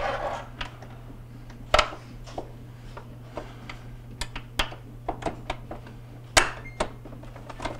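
Plastic wiring cover panel in a refrigerator's ice maker compartment being slid and pressed into place: a brief scrape at the start, then scattered light plastic clicks and taps, with two sharper knocks a little under two seconds in and about six and a half seconds in, over a steady low hum.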